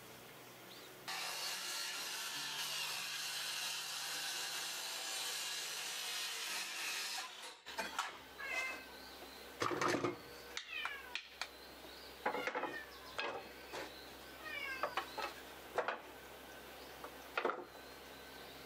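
A steady hiss for about six seconds, then a run of knocks and clatters as wooden boards are picked up and set down on a wooden workbench, with short high chirping calls in between.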